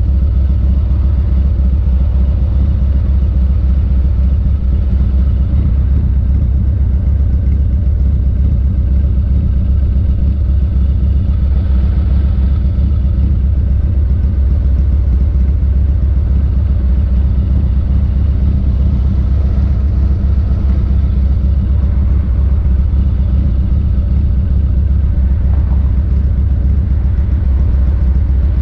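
1985 Harley-Davidson FXRT's Evolution V-twin idling steadily while the bike stands still, a loud, even low beat with no revving.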